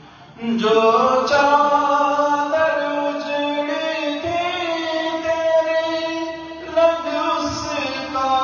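A man chanting an Urdu noha, a Shia lament, unaccompanied into a handheld microphone. His voice comes in about half a second in and holds long, drawn-out notes.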